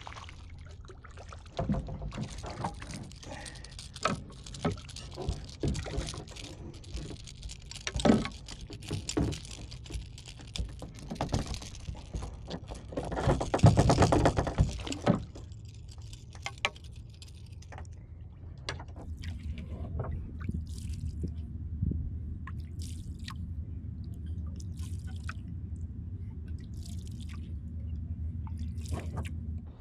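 Water splashing and dripping beside a fishing kayak as small jacks are unhooked and released, with scattered knocks and clicks. A small hooked fish thrashing at the surface makes the loudest splash about halfway through. In the last third a steady low rumble runs under occasional ticks.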